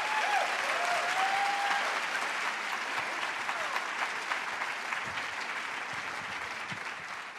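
Audience applauding a speaker onto the stage, with a couple of whoops in the first two seconds; the clapping dies away near the end.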